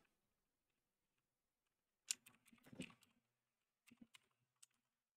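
Faint computer keyboard keystrokes. A quick run of clicks starts about two seconds in, followed by a few single taps.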